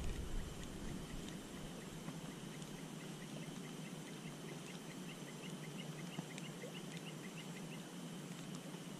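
A distant bird calling a quick run of short, high chirps, about three a second, for several seconds over faint outdoor background.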